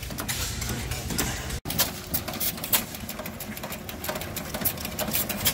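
Antique stationary gas engines running, a rapid mechanical clicking and clatter. The sound drops out abruptly about one and a half seconds in and picks up again on a second engine.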